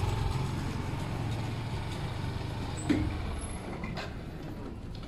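A large road vehicle's engine running and fading away. There is a sharp knock about three seconds in and a fainter click about a second later.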